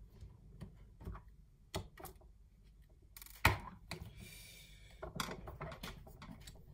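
Handling noise on a wooden tabletop: scattered light clicks and knocks of plastic parts and a screwdriver as a DJI Mavic Air drone and tools are handled, set down and picked up. The loudest is a sharp knock about three and a half seconds in, followed by a brief scraping rustle.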